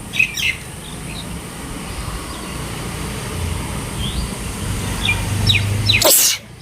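A woman sneezes once, a short loud burst near the end. Birds chirp now and then over a low steady rumble.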